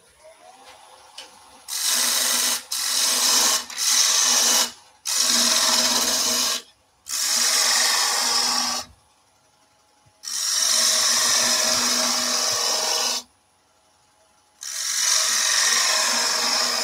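Bowl gouge cutting into a wooden spindle spinning on a wood lathe. There are seven loud cuts of one to three seconds each, separated by short pauses, with the lathe turning quietly in the gaps.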